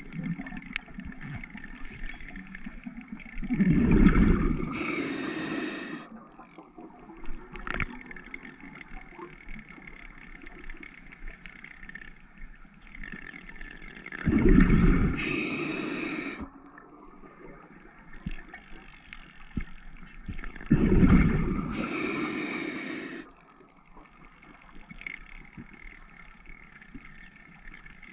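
Scuba diver breathing underwater through an open-circuit regulator: three exhalations, each a loud rush of exhaust bubbles lasting about two seconds, with a faint underwater crackle between them.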